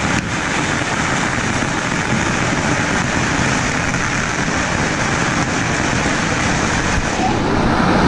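Huge firecracker string (pagara) going off: thousands of firecrackers crackling so fast that they merge into a loud, steady rattling din. The sharpest, highest part of the noise eases slightly near the end.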